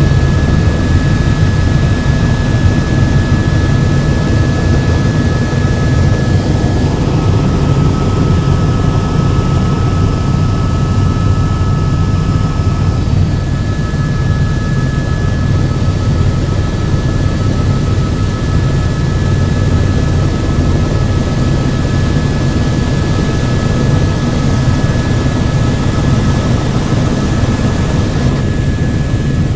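Helicopter in flight, its rotor and turbine engine making a steady, loud drone with a thin, steady high whine on top.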